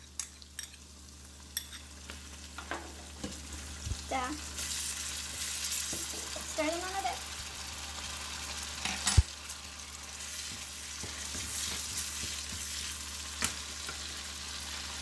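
Pork and scrambled egg sizzling in a hot wok while a wooden spatula stirs and scrapes them; the sizzle builds a few seconds in, after oyster sauce is poured into the pan. One sharp knock about nine seconds in.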